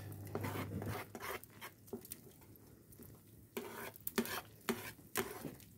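Spoons stirring and scraping in a pan of thick milk pudding, a scatter of light clicks and taps, a few louder ones in the second half.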